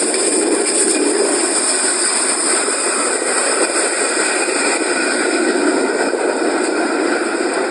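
Train running on the rails, a steady rushing noise of wheels and carriages with no break or change.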